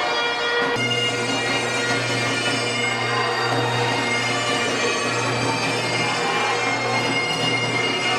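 Background music of sustained, steady notes over a low drone that comes in about a second in and cuts off at the very end.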